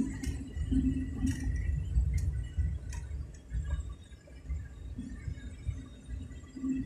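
Low, uneven road rumble of a moving vehicle heard from inside the cabin, with a few light clicks and rattles.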